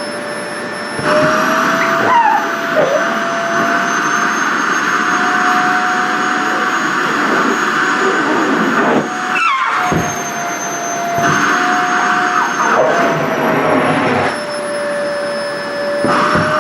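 Sharp EC-KP7F-A vacuum cleaner running with a steady whine over rushing air, sucking at skirt fabric. The airflow noise swells and falls several times and the pitch shifts slightly as the nozzle is covered and uncovered. Near the middle the sound briefly cuts out, with a quick dip and rise in pitch.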